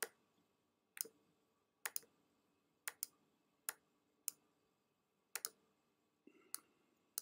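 Computer mouse button clicking, about once a second and sometimes in quick pairs, as anchor points are placed one by one with a pen tool to trace an outline.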